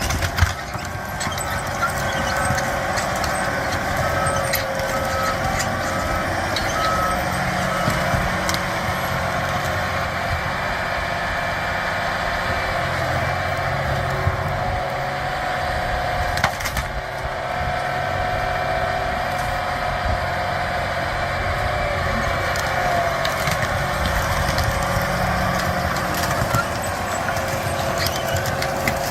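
Heavy machine's diesel engine running steadily, with a reversing alarm beeping for the first eight seconds or so and an occasional sharp knock, the loudest about halfway through.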